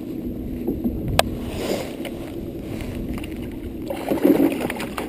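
Water sloshing and lapping at a wooden dock, with a hooked fish splashing at the surface about four seconds in. A single sharp click about a second in.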